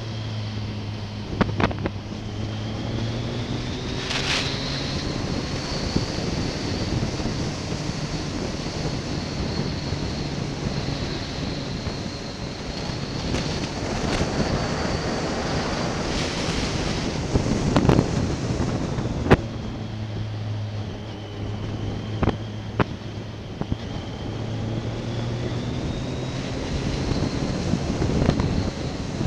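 Motorcycle engine running steadily while riding, with heavy wind rushing over the microphone and a few sharp knocks scattered through.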